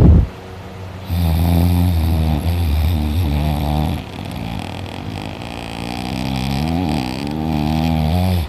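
A person asleep on their back snoring loudly. A rasping snore dies away at the very start, then a long, buzzing, pitched drone runs from about a second in until just before the end, easing a little halfway through.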